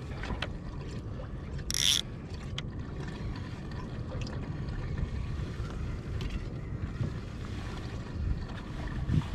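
Low steady rumble of wind and water at the microphone of a kayak on the sea, with faint clicks from handling a fishing rod and reel and one brief hiss about two seconds in.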